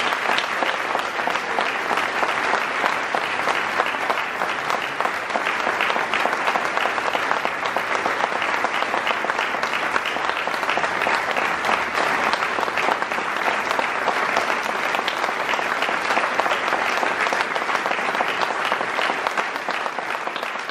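Audience applauding steadily, many people clapping together, starting to die down near the end.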